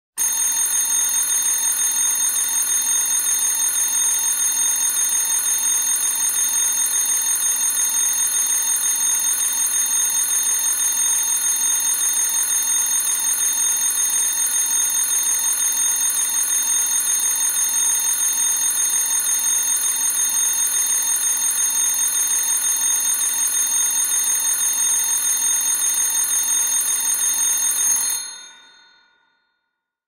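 Electric alarm bell ringing continuously with a fast, even ring. Near the end it stops and its tone dies away over about a second.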